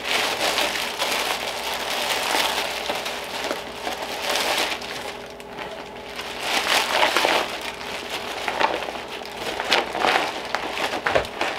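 Clear plastic bag and the thin vinyl of a deflated inflatable punching bag crinkling and rustling in irregular bursts as it is pulled out and unfolded by hand.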